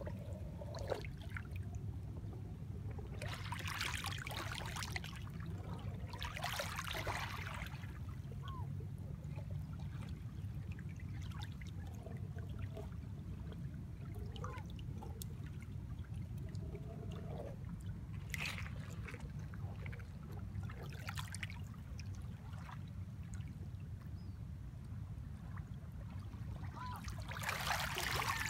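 Small waves lapping and washing over pebbles at the water's edge, in separate swashes every few seconds over a steady low rumble.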